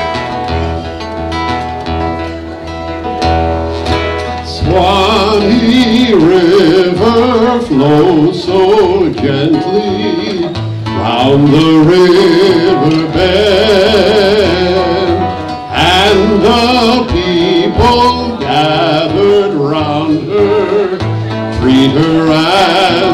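Acoustic guitar played alone, then a man singing over it, starting about five seconds in and going on with the guitar to the end.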